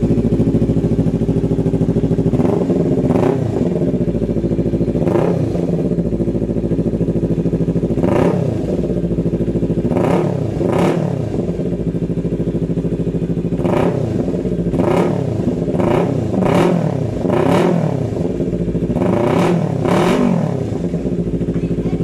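Yamaha MT25's 249 cc parallel-twin engine idling through an aftermarket full-system exhaust, blipped about a dozen times, each rev rising sharply and falling back to idle.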